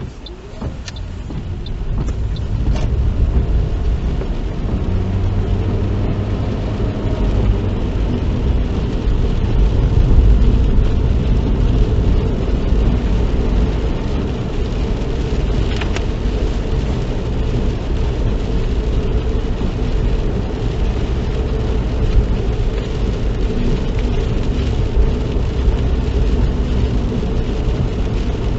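Car engine and road noise heard from inside the cabin while driving: a steady low rumble that builds over the first few seconds as the car gathers speed, then holds steady.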